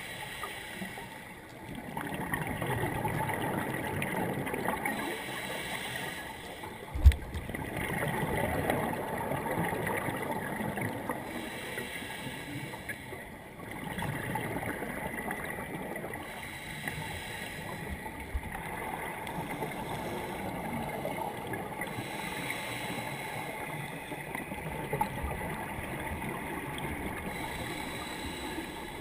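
Underwater noise heard through a camera housing: a scuba diver's regulator breathing, the bubble rush swelling and fading every few seconds. A single sharp knock about seven seconds in is the loudest sound.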